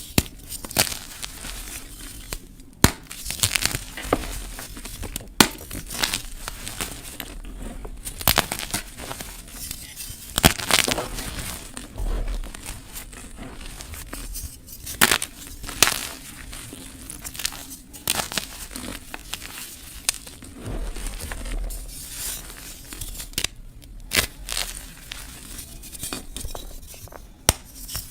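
Gym chalk and dried flower petals being crushed close to the microphone: irregular dry crunching and crackling, with sharp snaps every few seconds.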